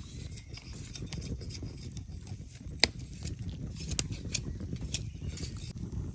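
Open wood fire burning, with a few sharp crackling pops scattered through a steady low noise.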